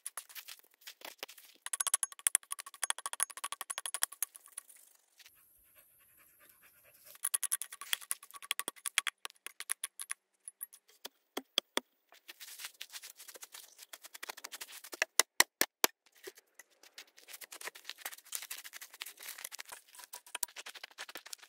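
Small metal mattock chopping and scraping into dry, stony soil, with loosened dirt and pebbles rattling. There is a short pause about five seconds in, and a quick run of sharp strikes a little past halfway.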